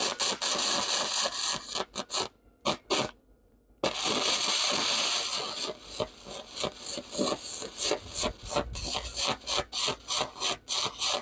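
Wire-feed (MIG) welder arc crackling and hissing as a test bead is run on steel off-cuts. The arc stops briefly about two and three seconds in, then runs steadily, and in the second half breaks into rapid stuttering spurts, several a second.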